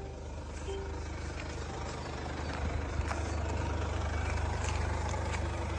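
Mercedes-Benz C220d's four-cylinder diesel engine idling steadily with a low hum, which grows a little stronger about two and a half seconds in, and a few light ticks.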